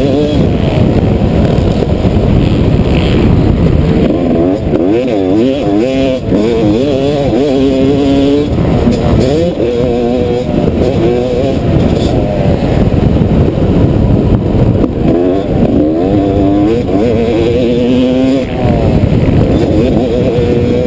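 Single-cylinder two-stroke engine of a Yamaha YZ250 dirt bike revving up and dropping back again and again as the rider accelerates, shifts and rolls off the throttle around the track, with heavy wind rumble on the mic.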